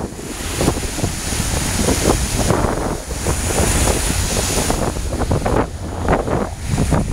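Waves breaking in the shallows and washing up a sandy beach, a steady rush of surf with repeated swells as each wave comes in. Wind rumbles on the microphone underneath.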